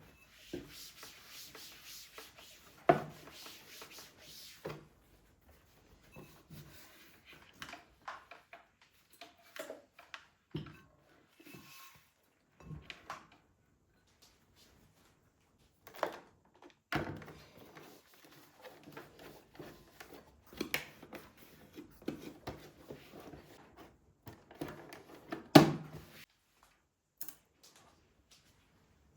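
Rubbing and scraping sounds with scattered sharp knocks: the sound of things being handled by hand. A hissy rubbing fills the first few seconds, and the loudest knocks fall about three seconds in and near the end.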